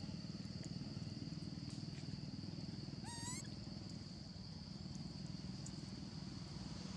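Steady low hum with a fine regular pulse, like a small engine idling, under a steady high insect drone. About three seconds in there is one short, rising, whistle-like animal call.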